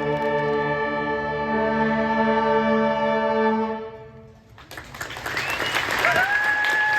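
A wind and brass ensemble holds a sustained chord that fades out about four seconds in. About a second later an audience breaks into applause and cheering, with one long high whoop.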